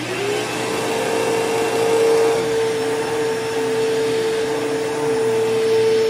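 Bissell Powerforce bagless 6579 upright vacuum cleaner switched on, its motor spinning up to speed within about half a second and then running with a steady whine and rush of air. It makes a startup noise that the owner puts down to the bearings.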